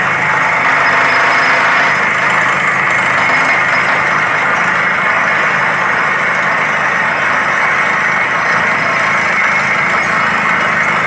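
Borewell drilling rig's engine and machinery running loud and steady, without any change in speed or pitch.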